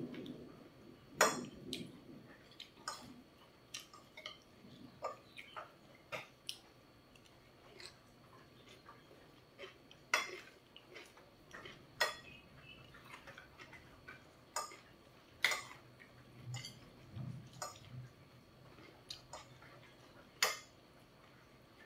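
A fork and spoon clinking and scraping against a plate in scattered, irregular clicks as food is cut and scooped up.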